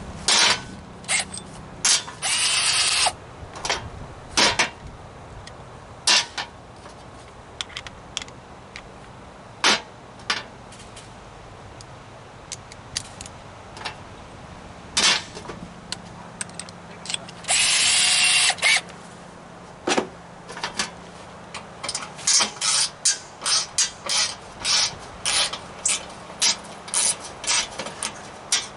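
Power drill/driver running in two short bursts, backing out fasteners while an air compressor is taken apart. Around the bursts come many sharp clicks and knocks of metal parts and tools being handled, coming thick and fast near the end.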